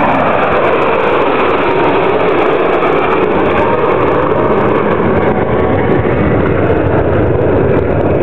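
Steady, loud jet-engine noise from a formation of four fighter jets flying past.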